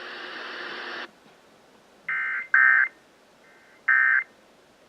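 Weather-radio hiss cuts off about a second in, followed by several short bursts of the screeching two-tone SAME digital data signal of an Emergency Alert System broadcast. The bursts are short, typical of the end-of-message code that closes a NOAA Weather Radio warning.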